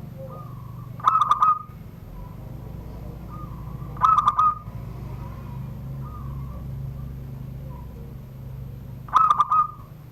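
Zebra dove (perkutut) singing its 'surung gdor' song: three short phrases of rapid ringing coo notes, about a second, four seconds and nine seconds in.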